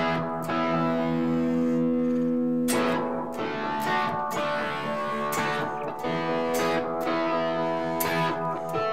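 Electric guitar played through overdrive and a StewMac Tape Op Delay kit pedal: one chord held and ringing for nearly three seconds, then a run of strummed chords about once a second.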